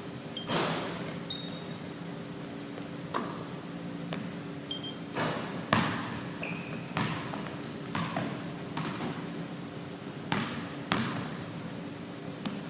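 Basketballs bouncing on a gym floor during a shooting drill: about ten separate echoing knocks at irregular intervals, with a few brief high shoe squeaks in between.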